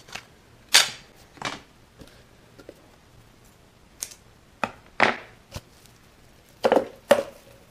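Scattered sharp knocks and clicks, about eight in all, from handling things on a wooden workbench: a thin wooden stick laid down, scissors snipping ribbon and a ribbon spool picked up and set down. The loudest come about a second in and as a quick pair near the end.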